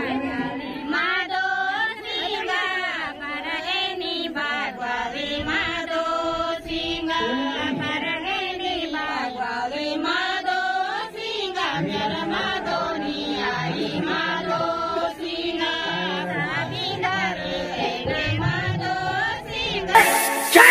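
A group of women singing a song together in chorus, their voices rising and falling in a wavering melody. Near the end it breaks off into a sudden, much louder burst of a different sound.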